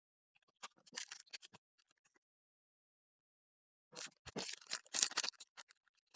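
Sticker packaging being handled: short bursts of crinkling and rustling. A brief flurry comes about half a second in, and a longer, louder one starts about four seconds in.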